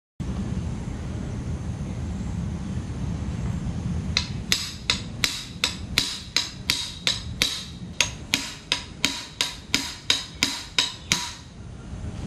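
A hammer striking a steel T-spanner about twenty times, about three blows a second, each blow a sharp ringing clink. The spanner is driving the rubber bush out of the upper mounting eye of a scooter shock absorber. The hammering starts about four seconds in and stops about a second before the end.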